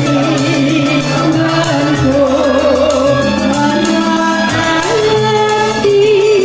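A song: a singer holding wavering notes over a band accompaniment with a stepping bass line.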